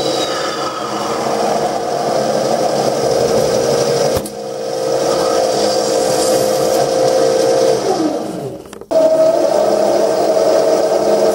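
Mini lathe's motor and spindle running in reverse with a steady whine while an upside-down parting tool cuts off a brass bar, with a sharp click about four seconds in. Near eight seconds the motor winds down with a falling pitch. After a brief break it runs again at a higher pitch as a high-speed-steel tool cuts into brass.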